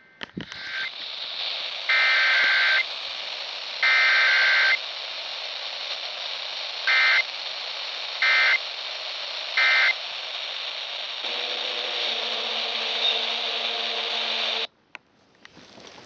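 FM radio broadcast of an Emergency Alert System required weekly test, heard through a portable radio's speaker over steady static hiss. There are two long loud EAS digital data bursts (the SAME header) about a second apart, then three short end-of-message bursts about a second apart. A low steady hum with several pitches follows for a few seconds before the audio cuts off suddenly.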